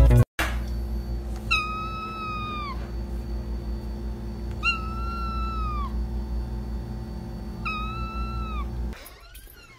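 A domestic cat meowing three times, evenly spaced, each a drawn-out meow of just over a second that holds its pitch and then drops at the end. A low steady hum runs underneath.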